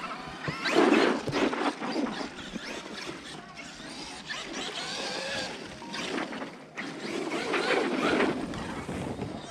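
Traxxas X-Maxx 8S RC monster truck's electric motor and drivetrain whining in repeated bursts of throttle while its tyres churn snow, loudest about a second in and again near the end.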